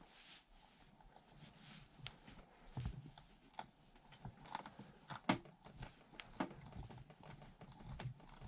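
Awl of a Ganzo G302-B multitool being twisted into a small branch: faint, irregular clicks, knocks and scrapes of the steel point boring into the wood and of the tool shifting in the hand.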